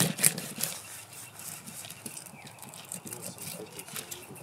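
Fillet knife cutting into a northern pike on a plastic cutting board, with a quick run of sharp clicks and taps in the first second, then quieter small handling noises.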